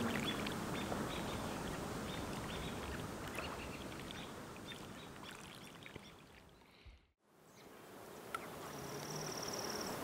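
Faint lakeside outdoor ambience: a steady hiss with small chirps and ticks, fading away to near silence about seven seconds in and then fading back up. Near the end comes a high, fast trill of about a second.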